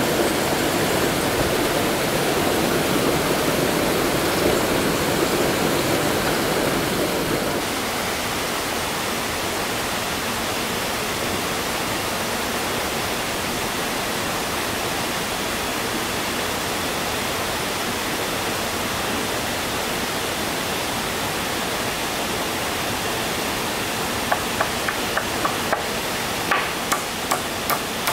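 Steady rush of a waterfall and stream. Near the end comes a quick run of hammer blows, about two to three a second, a hammer driving nails into the wooden framing.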